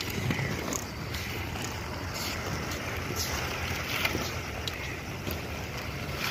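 Steady low rumbling noise of inline skate wheels rolling fast over stone paving, mixed with wind on the microphone, with a few faint ticks.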